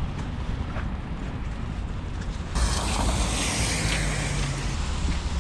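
Low, rumbling wind noise on the microphone over outdoor background noise. The sound changes abruptly about two and a half seconds in, turning hissier.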